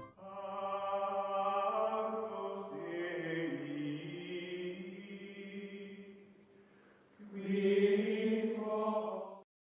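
Outro music of held, choir-like chords: a long chord that shifts partway and fades, then a second chord swelling in about seven seconds in and cutting off just before the end.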